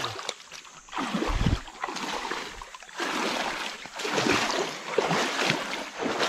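Water splashing and sloshing in an uneven run of small splashes, with a low thump about a second and a half in.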